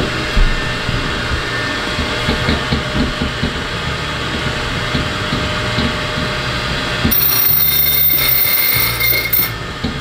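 Clicking and clunking of key cutting machines being set and worked by hand. About seven seconds in, a small cutter motor starts and runs with a steady high whine.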